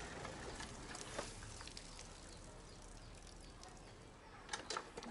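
Faint clicks and knocks from a hand-lever diaphragm pump being stroked, one group about a second in and another near the end.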